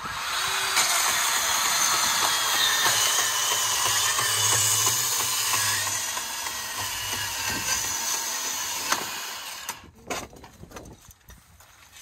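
Ridgid 18V cordless portable bandsaw with a brushed motor running and cutting through a metal frame rail, a steady saw noise that stops about ten seconds in, followed by a few light clicks.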